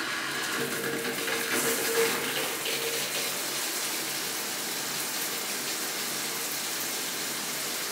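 Shower head running, water spraying steadily onto the tiles of a shower stall. A steady tone sits under the spray for the first three seconds or so.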